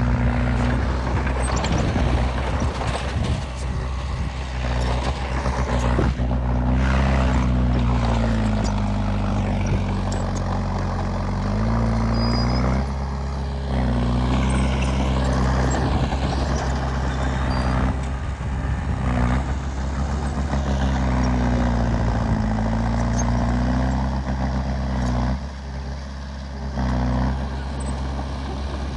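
Heavy diesel earthmoving machine running under changing load, its engine note dipping and rising again several times, with scattered metallic clanks.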